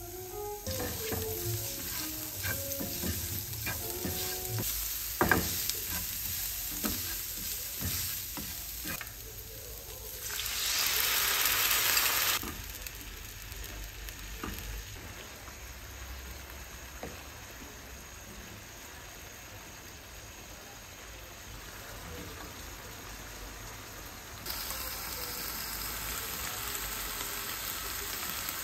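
Diced onions sizzling in oil in a nonstick frying pan, with a spatula tapping and scraping the pan many times. A louder hiss lasts about two seconds, then the pan settles to a quieter simmer of sauce.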